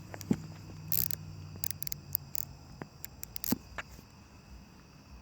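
Scattered small clicks and scrapes of a screwdriver and hands working on a Poulan chainsaw's bar and chain-tensioning screw.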